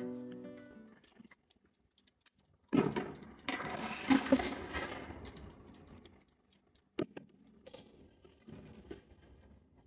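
Metal baking tray sliding and scraping over the wire rack of a countertop electric oven: a loud rattling scrape about three seconds in that dies away over a couple of seconds, then a single sharp knock about seven seconds in. Acoustic guitar music fades out at the very start.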